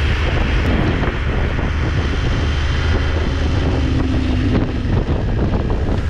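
Motorcycle riding along a road: wind rushing over the camera microphone, with the engine running steadily underneath.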